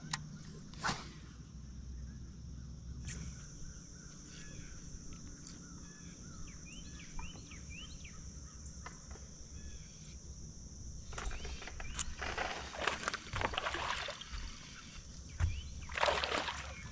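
Water splashing as a hooked bass thrashes at the surface next to a bass boat, in loud bursts during the second half. Faint bird chirps and a steady high hiss sit underneath.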